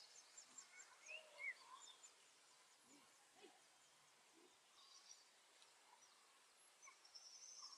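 Near silence with faint bird chirps: a couple of short rising calls a second or so in, and a quick high trill near the end.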